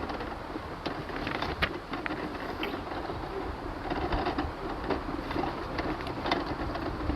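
Mobility scooter running along a path, a steady mechanical noise with scattered clicks and creaks.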